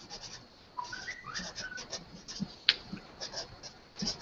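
A pet bird gives a short run of whistled chirps about a second in, stepping up and down in pitch, with light scattered clicks throughout.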